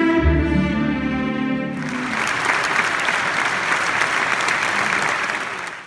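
A symphony orchestra holds a final sustained chord, with a low accent just after the start. The chord breaks off about two seconds in, and audience applause follows at once.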